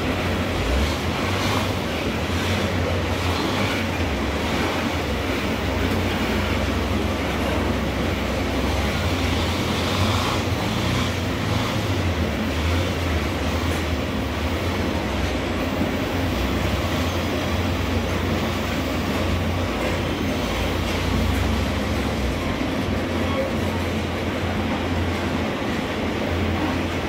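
Loaded iron-ore gondola wagons rolling past on steel wheels: a steady, low rolling noise of wheels on rail that does not let up.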